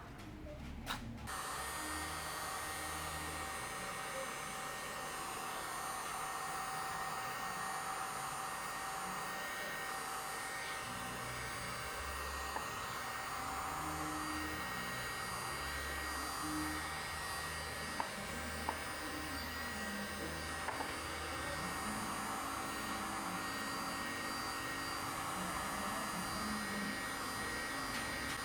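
A small electric motor starts about a second in and runs at a steady speed, with a few light clicks.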